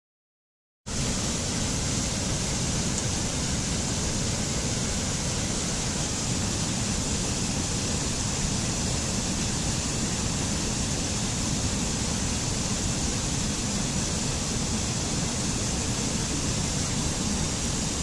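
Mountain stream rushing over boulders and small cascades: a steady, even rush of water that starts abruptly about a second in.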